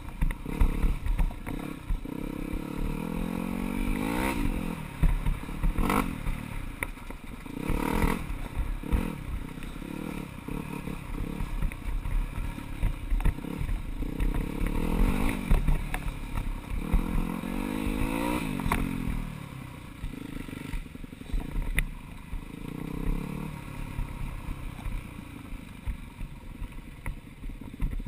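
A four-stroke single-cylinder dirt bike engine, heard close up while riding, revving up and dropping back again and again over a rough trail. Scattered clatters and knocks come through as the bike goes over the bumps.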